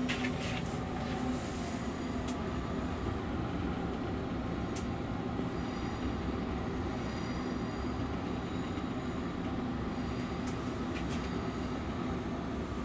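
Steady low rumble and hum of a Long Island Rail Road M3 electric railcar, heard from inside its small stainless-steel restroom, with a few faint clicks and rattles scattered through it.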